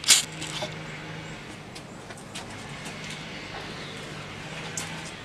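A sharp knock right at the start, then a steady low hum with a few light clicks.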